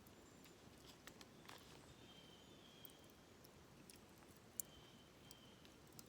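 Near silence: faint scattered small clicks and ticks, with a faint steady high tone lasting about a second, heard twice.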